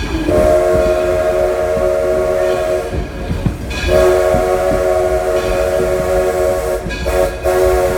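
Steam locomotive's chime whistle blowing three long blasts, each a steady chord of several notes, the last still sounding at the end, over the low rumble of the moving train.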